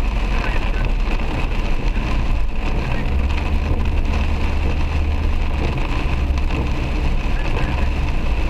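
Heavy rain beating on a moving car's roof and windscreen, heard from inside the cabin, over a steady low rumble of road and engine noise that grows stronger about three seconds in.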